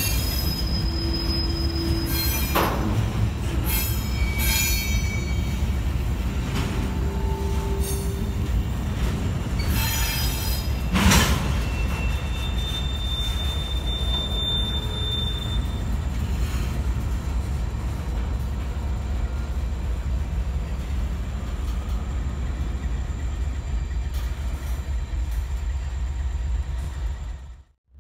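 Double-stack intermodal freight train rolling past: a steady rumble of the wheels on the rails, with short bursts of wheel squeal in the first half and one sharp crack about eleven seconds in. The sound fades out near the end.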